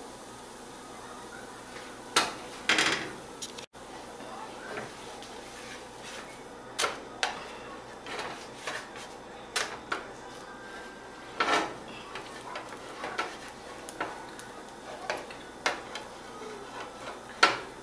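Scattered clinks and knocks of a spatula and utensils against a nonstick griddle pan, the loudest about two seconds in and near the end, over a faint steady hiss.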